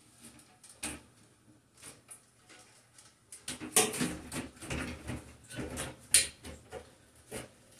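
The plastic grille and light housing of a Broan bathroom exhaust fan is handled and shifted against the ceiling, scraping and knocking. At first there are only faint scattered clicks. From about three and a half seconds in come louder scrapes and knocks, with one sharp click near six seconds.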